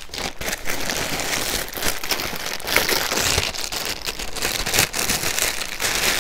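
Clear plastic packaging bags rustling and crinkling as they are handled and pulled open, a continuous run of crackles.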